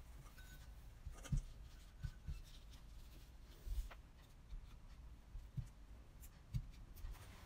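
Dishes being moved and set down on a cloth-covered table, including a stainless steel bowl of broccoli and cauliflower: a few soft, dull knocks, the loudest about a second in, with light rubbing and scraping between them.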